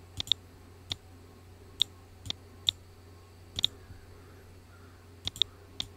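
Computer mouse clicking: about ten sharp clicks at irregular intervals, a few in quick pairs, over a faint low hum.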